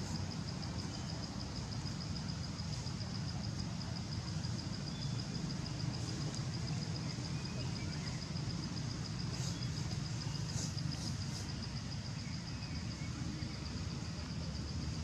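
Steady outdoor background: a low rumble under a continuous high-pitched pulsing buzz, with a few short high chirps about two-thirds of the way through.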